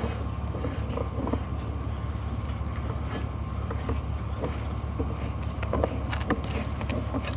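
Sewer inspection camera's push cable being fed through a drain line: scattered clicks and knocks over a steady low hum.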